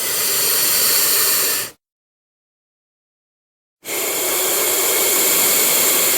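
Two long, loud hisses from a giant monitor lizard (Megalania) sound effect: the first lasts under two seconds, and the second starts about four seconds in and holds steady, with dead silence between them.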